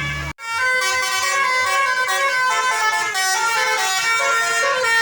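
Tourist bus 'telolet basuri' musical horn playing a melody, its notes stepping up and down in pitch. It starts abruptly about a third of a second in.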